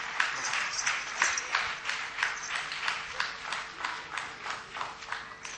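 Audience clapping together in a steady rhythm, about three claps a second, growing quieter toward the end.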